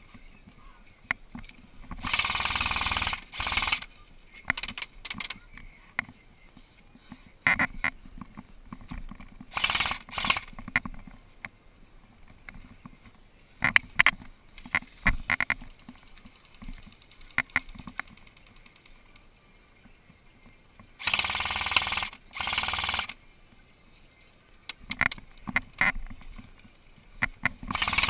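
Airsoft electric guns firing full-auto in several rattling bursts of one to two seconds each, with scattered sharp clicks and knocks between them.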